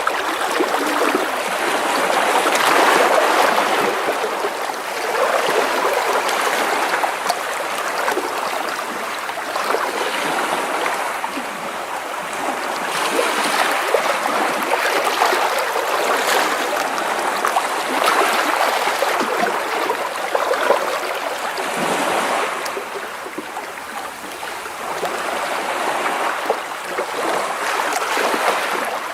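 Small sea waves washing and splashing against rocks close by, a continuous rushing, swelling and easing every few seconds as each wave breaks and drains back.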